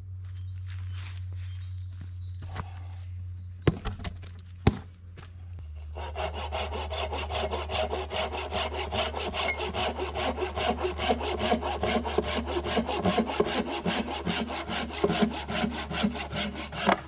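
Hand saw cutting through pine wood in fast, even back-and-forth strokes, starting about six seconds in, after a little rustling and two sharp knocks.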